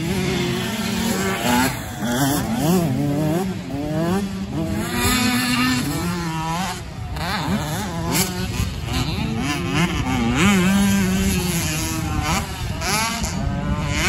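Several 125cc two-stroke motocross bikes revving hard around the track, their overlapping engine notes rising and falling with each throttle blip and jump.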